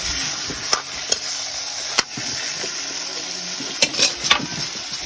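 Pork and gourd pieces sizzling in a steel wok while a metal utensil stirs them, scraping and clinking against the pan several times, with a quick run of knocks near the end.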